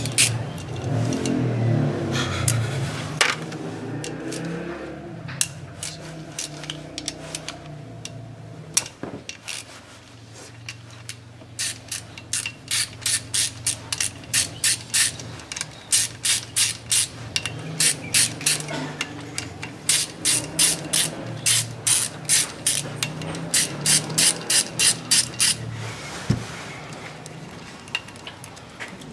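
Hand socket ratchet clicking in runs of quick strokes as a bolt is turned.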